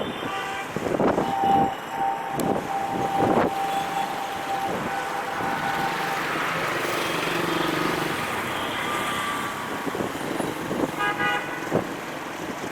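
Horns sounding over a steady rumble of traffic and a passing train: a short toot at the start, one long steady horn blast lasting about five seconds, and another short toot near the end, with a few knocks in between.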